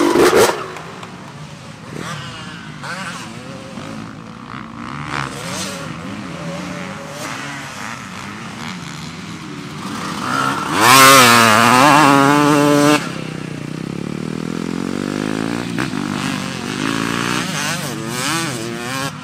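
Honda CR250 single-cylinder two-stroke dirt bike being ridden hard, its engine note climbing and dropping as the throttle opens and shuts. It is loudest as it passes close by about 11 s in, for about two seconds, then fades as it rides away.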